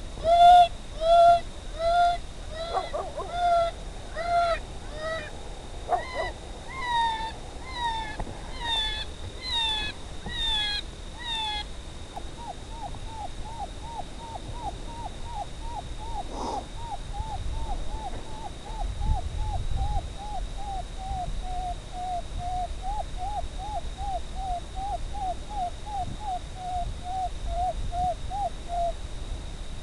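Electronic predator call playing animal distress cries: loud, evenly spaced pitched squalls about one a second for the first dozen seconds, then a quicker, fainter run of short cries about three a second. A faint steady high whine sits underneath.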